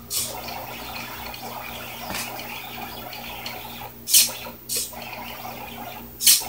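Pen plotter at work: the stepper-motor-driven pen carriage of a 4xiDraw drawing machine whirring steadily along its rails while the pen scratches over paper, with a few short, sharp hissing swishes, the loudest about four seconds in and near the end.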